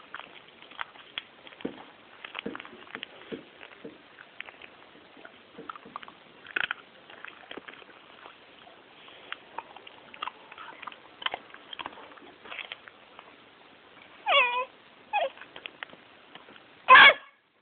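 Small dog chewing and crunching dried fish, with many scattered short clicks of teeth. Near the end it gives two wavering whines, then one loud, short cry.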